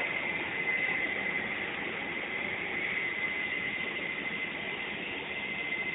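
Steady engine noise with a thin, steady high whine, the kind heard around aircraft and ramp vehicles on an airport apron.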